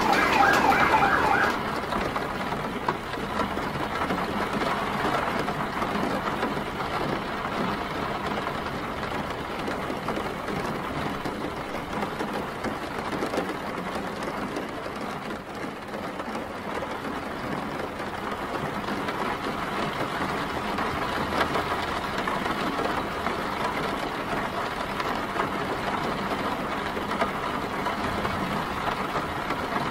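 Steady rain falling on a city street, mixed with the low run of passing traffic. A brief pitched sound opens it in the first second or two.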